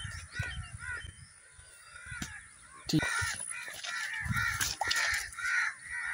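Crows cawing over and over, many short calls in quick succession, over low thumps and rustling of footsteps hurrying through short grass.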